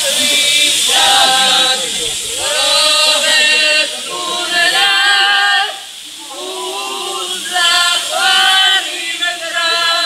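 A small group of teenagers, boys and a girl, singing a song together unaccompanied in held, sliding phrases, with a short pause about six seconds in. The steady rush of a waterfall runs underneath.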